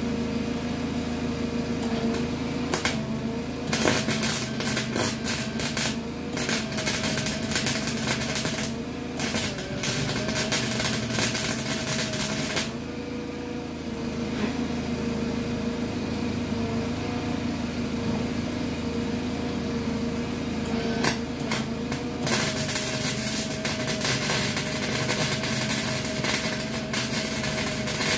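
Small 120-volt welder's arc crackling in long runs as it fills a gap in a sheet-steel bus floor patch. The first run starts about four seconds in and stops about halfway through, a short burst follows, then another long run starts near the end, all over a steady hum.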